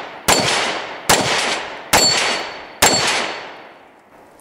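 Single-action revolver fired four times, a little under a second apart, each report fading out over most of a second. A faint high metallic ring comes with each shot, as steel knockdown plates are hit.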